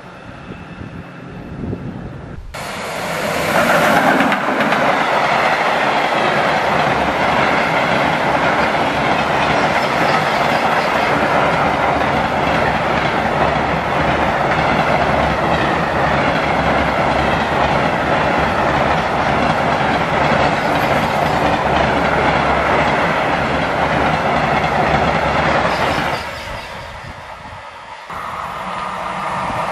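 A long freight train of high-sided hopper wagons passing close at speed, the wheels clattering and rushing steadily on the rails. The sound starts suddenly a couple of seconds in and fades about four seconds before the end as the train recedes, and near the end another train begins to approach.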